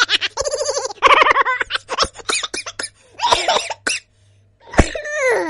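A string of recorded human laughs, one after another: rapid pulsed ha-ha bursts first, then shorter choppy snickers, and near the end a laugh that falls in pitch.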